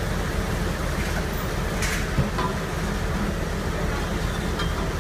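Steady low drone of heavy concrete machinery running, a mixer truck and concrete pump at work while concrete pours into the pump's hopper, with a few light clicks and knocks on top.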